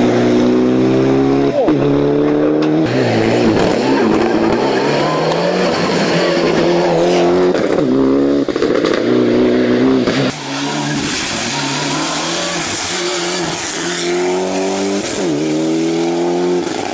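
Mitsubishi Lancer Evolution rally car's turbocharged four-cylinder engine at full race effort, revving up and dropping again and again as it shifts through the gears and slows for bends. About ten seconds in the sound cuts to another pass of the car.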